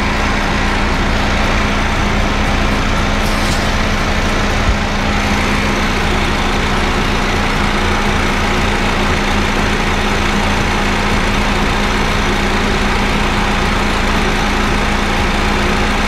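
Honda Fit GD3's 1.5-litre four-cylinder engine idling with the air conditioning running, a steady even engine-bay noise with a low hum. The owner thinks the AC compressor is worn.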